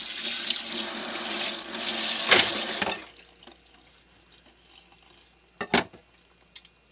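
Kitchen tap running into the sink, shut off about three seconds in. Then faint knife-and-hand noises on a cutting board, with one sharp knock of the kitchen knife against the board a little before the end.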